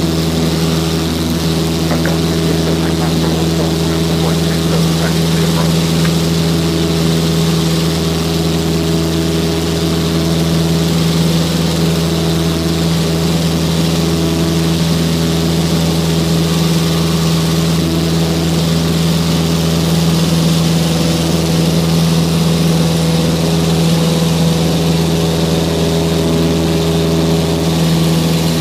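Cessna Skyhawk's piston engine and propeller running steadily under power in flight, a loud even drone with a low hum and no change in pitch.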